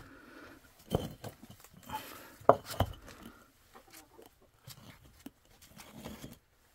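Concrete bricks being shifted by hand, giving a few sharp knocks and scrapes of block against block, the loudest about two and a half seconds in.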